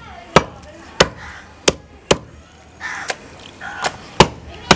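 Butcher's cleaver chopping goat meat and rib bone on a wooden log chopping block: a series of sharp chops about one every half second, with a pause in the middle.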